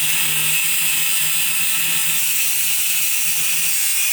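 Power tool running steadily as it cuts about half an inch off a threaded plumbing pipe that was too long to fit flush. The sound starts suddenly and holds evenly.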